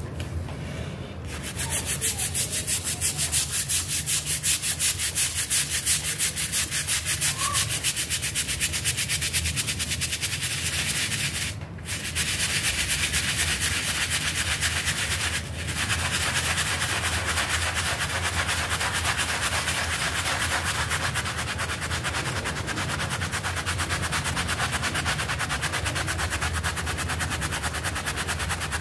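Stiff plastic-bristled scrub brush scrubbing a wet, soapy piece of carpet with rapid back-and-forth strokes. It starts about a second in and pauses briefly twice, about 12 and 15 seconds in.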